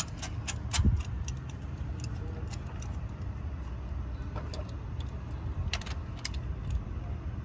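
Scattered metallic clicks and clinks from a socket and ratchet as a new spark plug is threaded in and snugged down, over a steady low hum.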